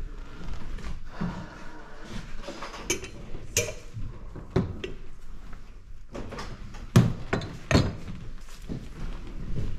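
Scattered knocks and thumps of people moving about and handling things in a house with hardwood floors, with two louder thuds about seven and eight seconds in.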